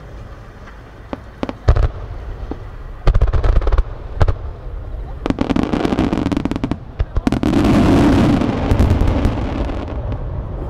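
Aerial firework shells bursting: a few deep booms in the first four seconds, then a dense rush of crackling that builds from about five seconds in and is loudest around eight seconds.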